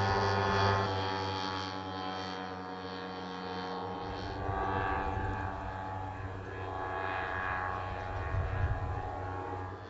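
Propeller engine of a Watchkeeper unmanned military drone flying overhead, a continuous high-pitched whine over a low hum, loudest in the first second and then steady with slow swells.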